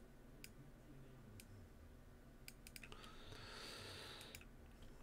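Faint computer mouse clicks, several scattered single clicks, over near silence, with a soft hiss about three seconds in that lasts a little over a second.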